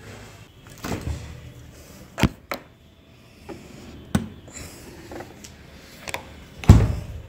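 Handling noises as a plastic food container is taken out of a refrigerator: a few scattered clicks and knocks, then a heavier thump near the end.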